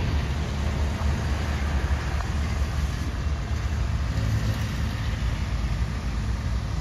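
A train's diesel engine running, a steady low rumble with a light hiss over it.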